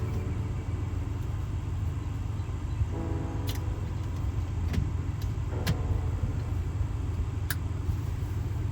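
A steady low rumble with a handful of sharp, separate clicks, the sound of the plastic switch and its wiring connector being handled and plugged in at the steering column.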